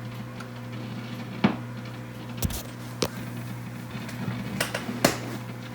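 Steady low hum from a 1947 Truetone D1612 tube table radio switched on between stretches of broadcast talk, with five sharp clicks and knocks spread through it.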